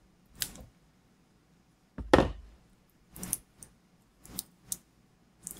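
Short plastic clicks and knocks as a disposable vape's battery-and-reservoir assembly is worked out of its plastic shell with needle-nose pliers; the loudest is a thump about two seconds in.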